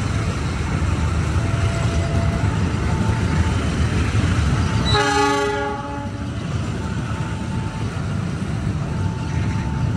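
KAI passenger coaches of the Kamandaka train rolling past at close range, their wheels on the rails making a steady loud rumble. A train horn sounds one short chord about five seconds in.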